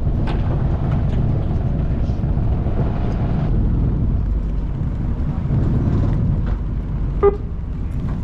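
Fishing boat's engine running with a steady low rumble, and a short buzzer beep about seven seconds in: the captain's signal to start fishing.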